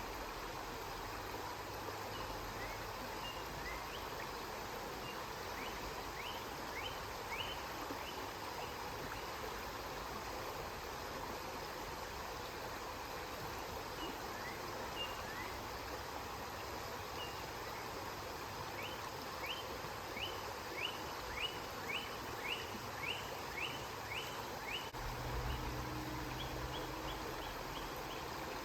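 River water flowing in a steady rush, with a small bird giving short high chirps, a few at a time early on and a long run of about two a second in the second half. A low hum comes in a few seconds before the end.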